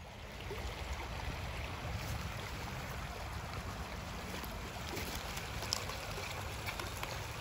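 Wind rumbling on the microphone as a steady low buffeting, with a few faint crunches of footsteps on loose creek gravel.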